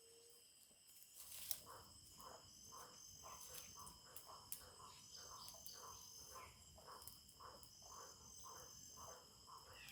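Faint chorus of insects such as crickets, a steady high trill, with a soft call repeating about two or three times a second.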